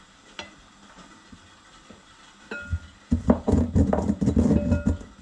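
Cardamom pods and cumin seeds being crushed: a loud, dense run of rapid knocks and grinding for the last two seconds, after a few faint clicks.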